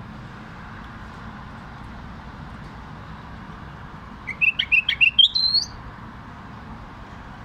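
Common bulbul singing one short phrase about four seconds in: a quick run of bright notes that climbs into a higher, rising final note.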